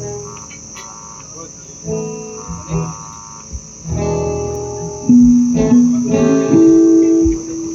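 Guitar being played in separated plucked notes and chords, with louder held notes over the second half. A steady high-pitched hiss or insect-like trill runs underneath.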